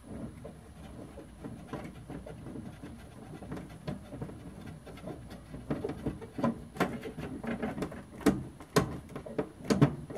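Metal clicks, taps and rattles as screws are driven by hand through the back of a Masterbuilt electric smoker to fasten its heating element. The element shifts against the sheet-metal panel as they go in. The knocks grow sharper and more frequent in the second half.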